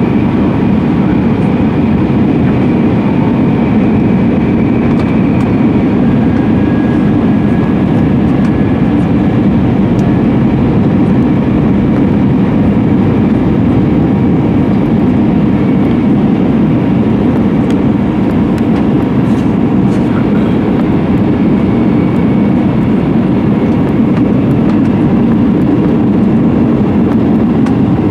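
Steady cabin noise inside an Airbus A320-200 on approach to land: a loud, even rush of jet engines and airflow heard from a window seat by the wing, with a faint high whine running through it.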